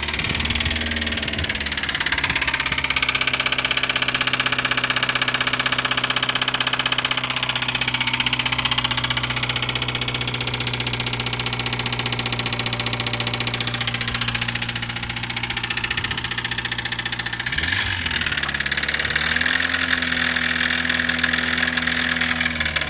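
Subaru Sambar GD-TT2's four-cylinder 660 cc engine idling with a rattling (ガタガタ) noise from inside the engine, the abnormal noise the owner is showing. It settles from a fast idle in the first couple of seconds, dips briefly about three-quarters of the way through, then runs at a slightly higher speed.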